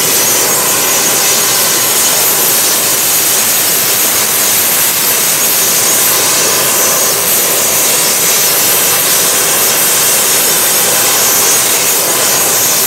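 Jet airliner engines running: a steady, loud rush of noise with a thin, high whine on top.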